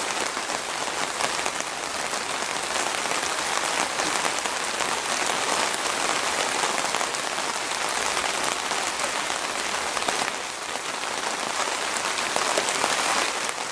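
Heavy thunderstorm downpour: a steady hiss of rain falling on surfaces close by, easing slightly for a moment about ten seconds in.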